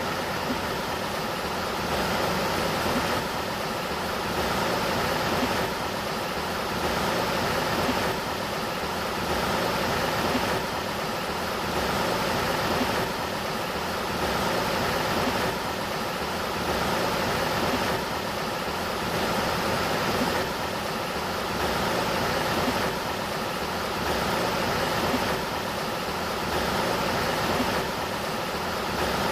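Steady rush of flowing river water (the Sacramento River), swelling and easing gently about every two and a half seconds.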